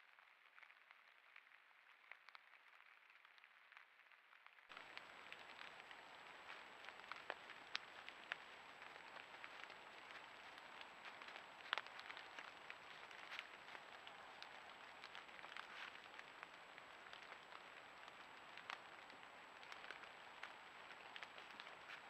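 Near silence: a faint hiss with scattered small clicks and crackles, over a steady high-pitched whine. The first few seconds are almost silent.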